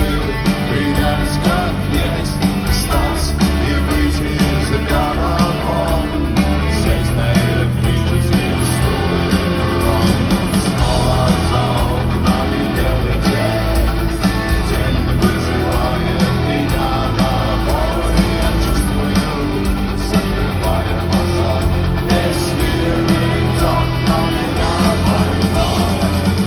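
Rock band playing live, with electric guitars, drums and singing.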